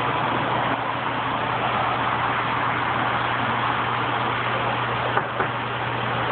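Saltwater aquarium pumps and filter running: a steady electric hum under an even rushing noise of circulating water. Two faint clicks about five seconds in.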